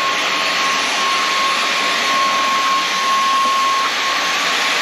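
Inse S610 cordless stick vacuum running steadily: a whistling motor whine at a single steady pitch over the rushing hiss of the suction airflow.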